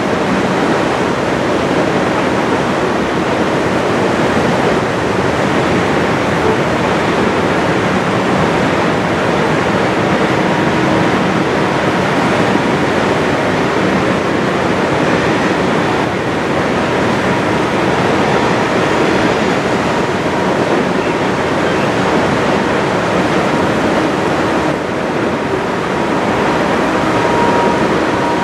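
Steady rush of a fast river mixed with the rolling rumble of a coal train of hopper cars passing along the far bank. A thin, steady high tone comes in near the end.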